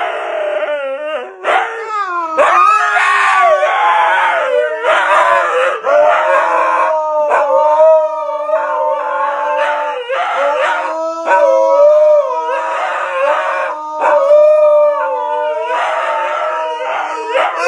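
Two husky-type dogs howling together, long overlapping howls that waver and glide up and down in pitch.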